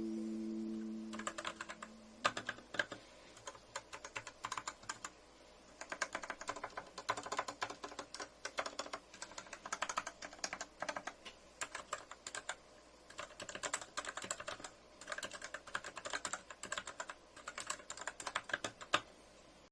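Typing on a mechanical keyboard fitted with Outemu Purple switches: quick bursts of key clicks with short pauses between them.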